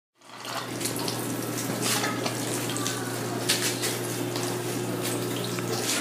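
Water running and splashing through a drip hydroponics system over the steady low hum of its water pump; the hum cuts off just before the end.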